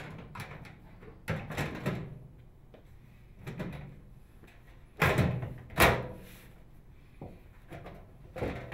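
Microwave oven's metal outer cover being fitted back on: a series of clunks and scraping knocks as it is slid and pressed into place, the loudest two about five and six seconds in.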